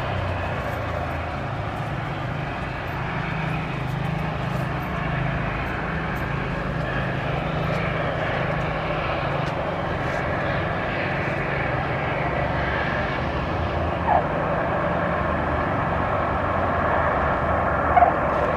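Lockheed C-130 Hercules' four Allison T56 turboprops with four-bladed propellers running as the aircraft lands and rolls out, a steady low propeller drone over a broad rushing noise, slowly getting a little louder.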